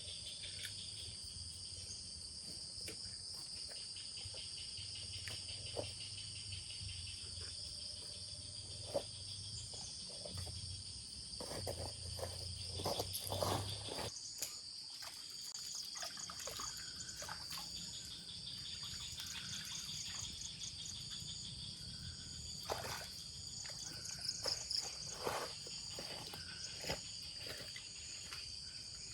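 A chorus of insects such as crickets trills steadily at a high pitch, with scattered clicks and knocks. The knocks are loudest about halfway through and again near the end.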